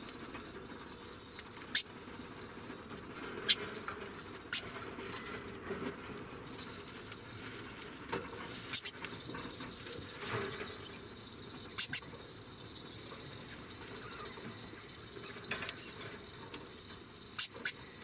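Degu making short, sharp high chirps now and then, several in quick pairs, over a soft rustle of hay.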